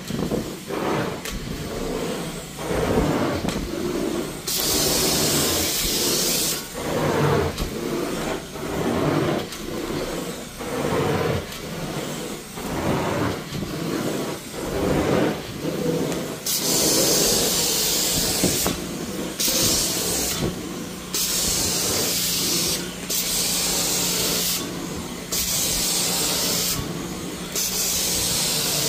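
Hot-water extraction carpet wand worked back and forth over carpet under suction, with a rhythmic rush on each stroke. The wand's spray jet hisses once for about two seconds early on, then in a run of repeated bursts, switched on and off, through the second half.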